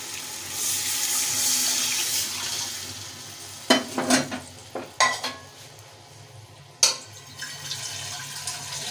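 Water poured from a steel pan into a hot aluminium pot of fried chana dal masala, rushing and sizzling for about two seconds as it hits the hot masala. Then come a few sharp clanks of metal cookware against the pot.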